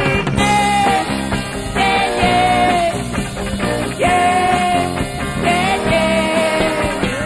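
Rock band playing live: electric guitars, bass and drum kit over a steady beat, with a long held melody line that bends slightly in pitch.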